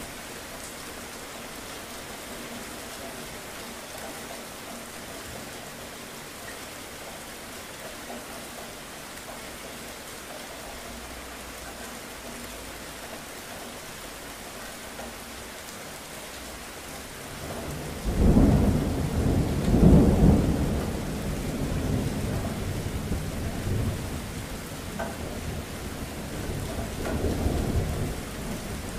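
Steady rain falling. About two-thirds of the way through, a loud roll of thunder breaks in with two peaks close together, then rumbles on under the rain, swelling once more near the end.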